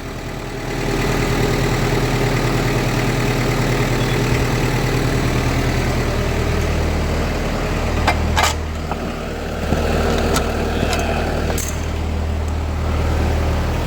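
Kubota M59 backhoe's four-cylinder diesel engine running under load as the machine creeps forward, its note rising about a second in. A few sharp knocks are heard in the second half.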